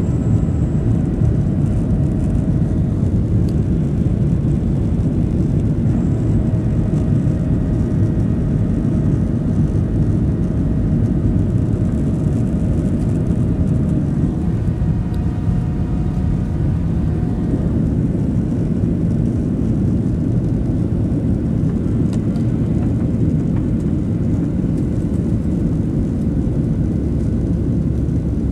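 Jet airliner's engines and rushing airflow heard from inside the passenger cabin during the climb after takeoff: a loud, steady rumble, with faint whining tones over it that come and go.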